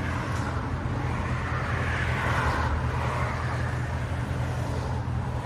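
2024 Ford F-150's 5.0L Coyote V8 running steadily through a Borla XR-1 Sportsman muffler, a low, even exhaust drone. A wider hiss swells and fades in the middle.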